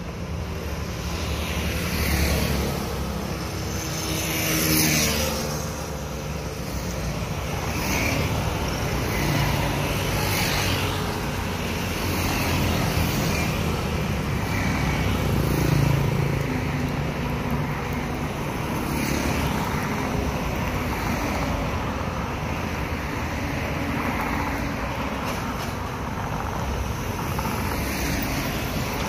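Road traffic on a multi-lane street: cars, pickup trucks and motorbikes going by, each one swelling and fading over a steady traffic hum. The loudest passes come about 2, 5 and 16 seconds in.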